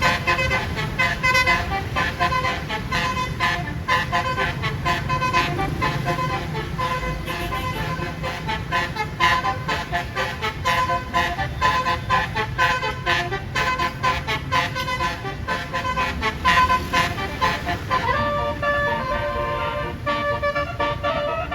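A bus's 36-note telolet horn playing a fast melody of short, quickly changing notes over the bus engine's low rumble. Near the end it shifts to a tune of longer held notes.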